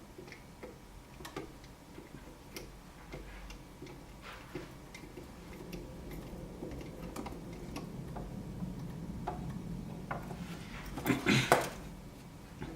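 Scattered light clicks and taps from handling small tools and parts at a workbench, over a low hum. About eleven seconds in comes a short, louder clatter of several knocks.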